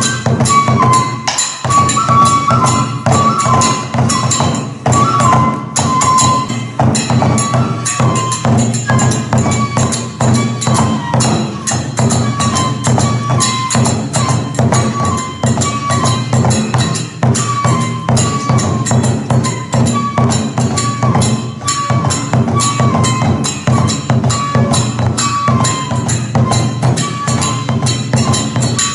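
Kagura festival music: a taiko drum beating steadily under fast, continuous clashing of small hand cymbals, with a bamboo flute repeating a short high phrase over it.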